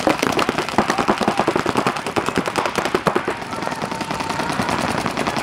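Paintball markers firing in rapid streams, many shots a second from several guns overlapping, heaviest over the first three seconds or so and then thinner.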